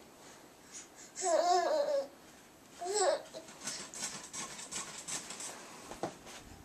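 Baby babbling with a pacifier in his mouth: a drawn-out wavering vocal sound about a second in and a shorter one near three seconds, followed by faint soft taps.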